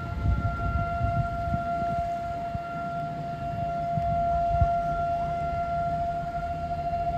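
Outdoor warning siren sounding a steady alert tone at one unchanging pitch, over a low rumbling noise.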